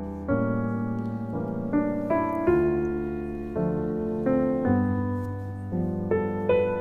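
Background piano music: slow chords struck about once or twice a second, each left to ring and fade.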